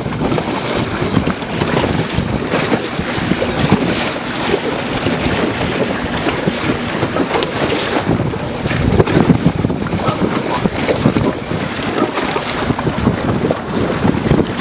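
Wind buffeting the microphone over water rushing and splashing along the side of a moving boat: a steady rushing noise, louder for a moment about nine seconds in.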